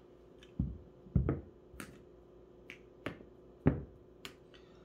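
Backgammon checkers clicking and knocking as they are slid and set down on the points of a Wycliff Brothers Prestige board: about seven sharp, irregularly spaced clacks, a few of them with a duller thud.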